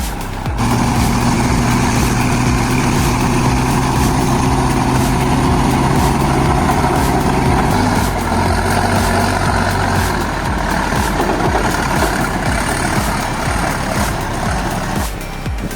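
Heavy truck engine running steadily; its note drops a step about eight seconds in.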